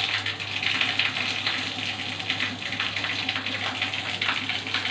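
Cooking oil heating in a black non-stick frying pan on a gas stove, sizzling and crackling steadily as it gets hot for frying fish.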